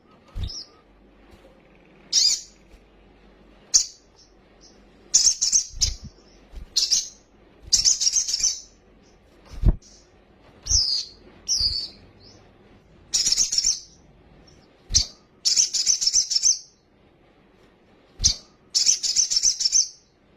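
Kolibri sogok ontong calling in repeated bursts of shrill, high, rapid chirping, each a second or so long with short pauses between, some ending in quick falling notes. A few dull low knocks sound under the calls.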